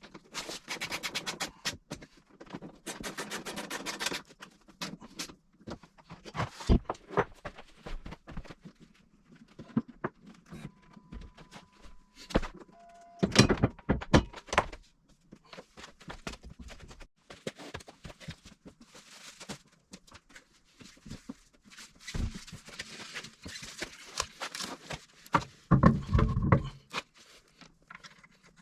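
Tools and parts being handled: two runs of rapid clicking in the first few seconds, scattered knocks and clatter, a short steady tone around the middle, and bursts of heavier knocking about halfway through and near the end.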